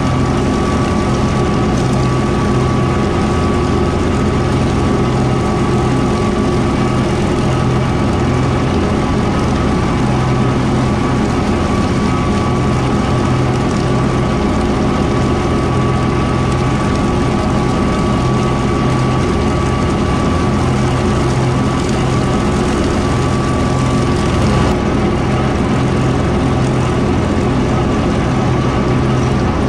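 Kubota M4-071D tractor's four-cylinder diesel engine running steadily under load while driving a Woods BW12 batwing rotary mower, with a thin steady whine over the engine note.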